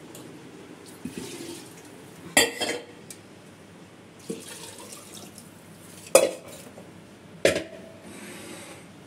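Warm water and cream sloshing and pouring as a bowl and a steel pot are rinsed out into a clay pot, ready for churning. Three sharp clinks of the pots and bowl knocking together, the loudest about six seconds in.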